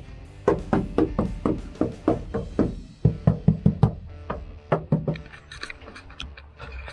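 Knocking by hand on the steel floor and panels of a Unimog U1300L cab, about four knocks a second, then lighter, higher taps near the end. This is a noise test of the freshly applied Silent Coat sound deadening, checking which panels still resonate.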